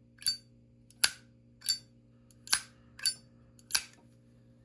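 Brass Zippo lighter lid flicked open and snapped shut over and over: six sharp metallic clicks, each with a brief ring, about two-thirds of a second apart.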